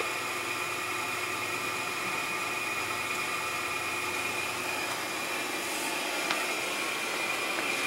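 Incinolet Carefree Deluxe incinerating toilet's squirrel-cage blower motor running, a steady fan noise with a faint high tone.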